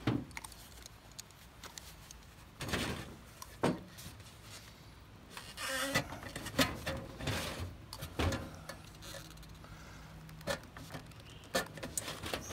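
Irregular scrapes, creaks and knocks of a thin steel tin can being pressed and worked by gloved hands, as bolts are forced through slits cut in its wall.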